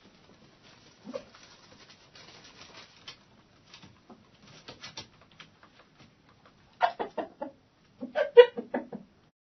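Hens clucking in a chicken coop: faint, scattered soft sounds at first, then two loud bursts of quick clucks about seven and eight seconds in.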